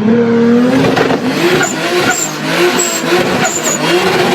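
Tuned car engine at high revs. Its pitch climbs steeply right at the start and holds, then swings down and up in quick repeated blips. Short high chirps sound over the engine.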